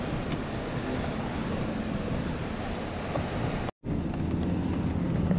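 Steady engine and road noise heard inside a van's cab while driving. The sound cuts out for a moment about three and a half seconds in, then the same noise resumes.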